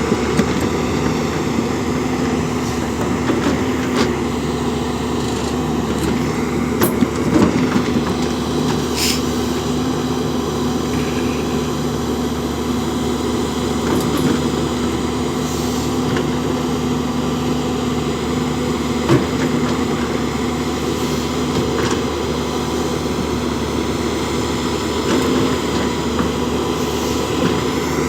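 JCB backhoe loader's diesel engine running steadily while it works, with a few sharp knocks scattered through.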